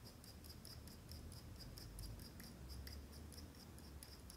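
Near silence: faint room tone with a faint, even ticking, several ticks a second.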